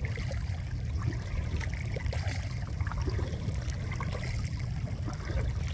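Water trickling and dripping in small splashes around a kayak, with water lapping at the hull, over a steady low rumble.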